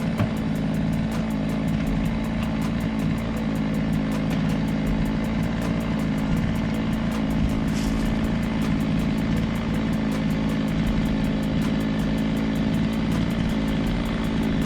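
Chainsaw engine running steadily, without a change in pitch.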